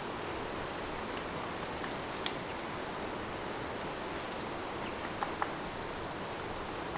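Steady rain falling, with a few sharp drop ticks and brief high-pitched chirps over the hiss.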